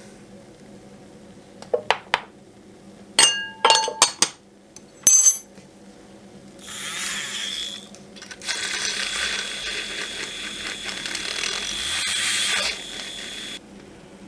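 A spoon clinking against a cup about seven times in quick groups, each strike ringing briefly. Then a short hiss, and a steady hiss for about five seconds that stops suddenly.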